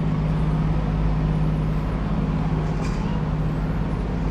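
Outdoor city street ambience: a steady low motor hum of traffic, with a few faint high chirps.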